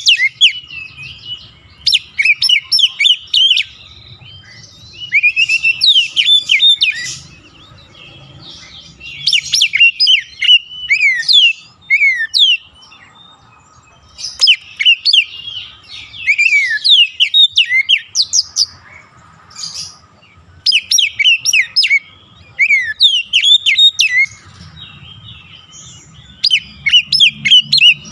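Oriental magpie-robin (kacer) singing: phrases of quick, varied whistles and chirps, each a second or two long, with short pauses between.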